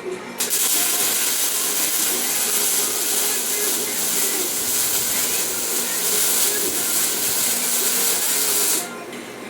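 Welding arc hissing and crackling in one continuous bead of about eight seconds, starting abruptly and cutting off near the end.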